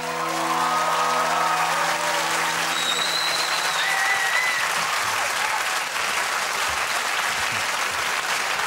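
Studio audience applauding, while the band's last sustained chord rings on under the clapping and dies away over the first four seconds; a few high whoops rise above the applause midway.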